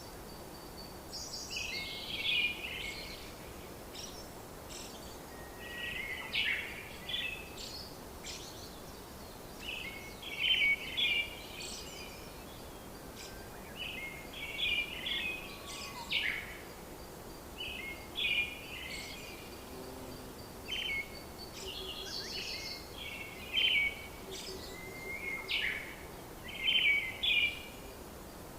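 Birds calling: bursts of short chattering, chirping notes repeated every second or two, over faint steady background noise.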